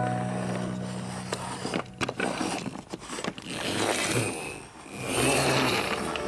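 Plastic wheels of a toy cement mixer truck rolling and scraping as it is pushed back and forth over a hard floor, the noise swelling and fading unevenly, with a low steady hum in the first couple of seconds.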